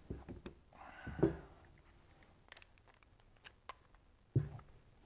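Wrenches clicking and tapping on aluminium AN fittings as they are tightened into an in-line fuel filter, with a louder clink about a second in. Tools are set down on the bench with light metal clicks and a soft thump near the end.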